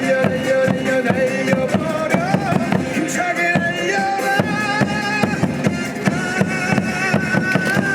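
Loud stadium cheer music through the ballpark's PA, a melody over a steady drumbeat.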